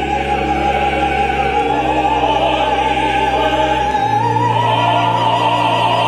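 Operatic singing with orchestra: a high voice holds one long note with vibrato over sustained low orchestral notes, and the bass note shifts about four seconds in.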